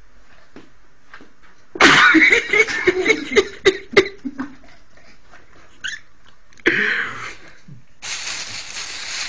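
A person laughing in one loud burst of quick, pulsing laughs lasting about two seconds, followed a few seconds later by a shorter noisy burst. Faint clicks come before the laughter and a steady hiss near the end.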